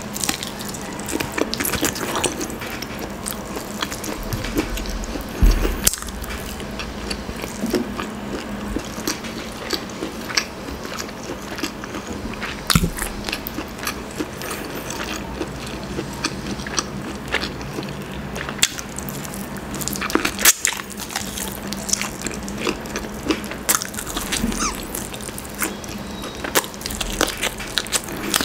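Eating grilled chicken inasal: repeated biting and chewing of the charred meat and skin, and tearing meat off the bone, with many short, irregular crunchy clicks.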